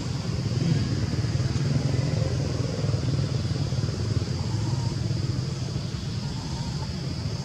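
Steady low rumble of a running motor, with a steady high-pitched hiss over it.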